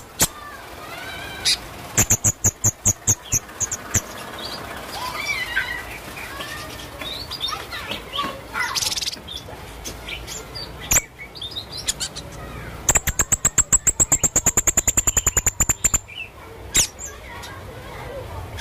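Bird song made of varied chirps and whistled glides, broken by fast, high, rattling trills: a short one a couple of seconds in and a longer, louder one past the middle.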